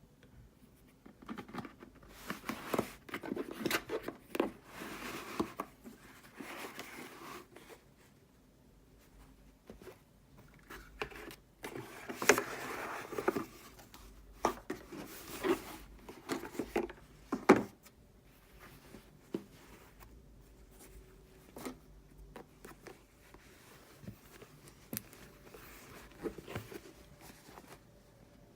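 Hands unpacking and handling packaging: irregular rustling, scraping and small clicks and knocks, in two busy stretches with quieter gaps, then only a few light ticks.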